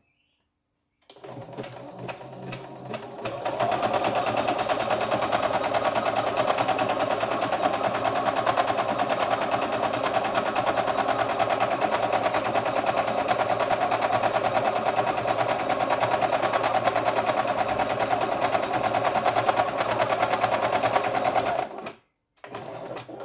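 CNY E960 computerized sewing-embroidery machine sewing a selected decorative stitch pattern: it starts with a few slow stitches about a second in, runs steadily at speed with a fast even needle rhythm, and stops abruptly near the end.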